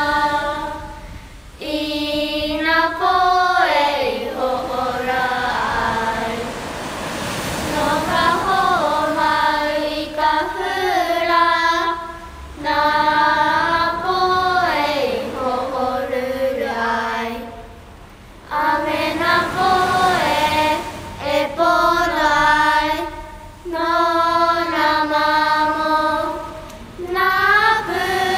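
Voices singing a Hawaiian mele for hula in long, held, melodic phrases with short breaks between them.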